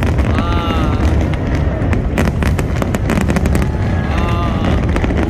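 Aerial fireworks display: shells bursting in rapid, dense crackling and bangs over a continuous deep rumble, loud throughout.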